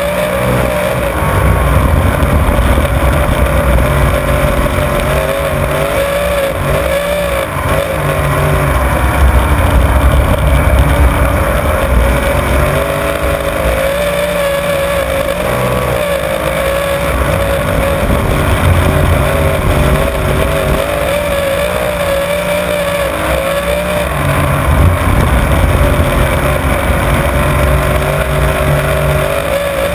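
Winged sprint car's V8 engine at racing speed, heard from a camera in the car's cockpit. The engine note rises and falls every few seconds as the throttle comes on and off through the corners.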